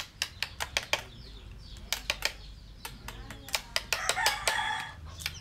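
Mallets tapping wood-carving chisels: a steady run of short sharp taps, several a second. A rooster crows about four seconds in.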